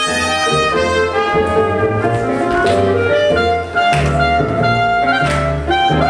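Live small jazz band playing a slow swing tune: a horn melody over a steady bass line.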